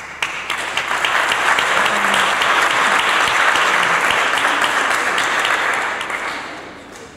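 Audience applauding: a dense clapping that starts at once, holds steady, then dies away over the last second or so.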